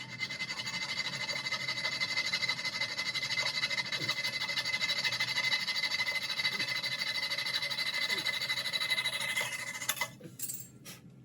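Small powered saw cutter running steadily with a high whine, cutting down the toilet's flange bolts; it winds down with a falling pitch about nine and a half seconds in.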